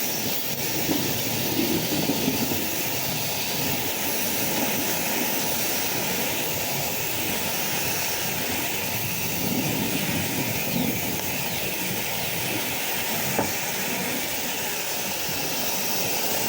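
Pressure washer running with its water jet spraying steadily onto a surface during rinsing, a constant loud hiss.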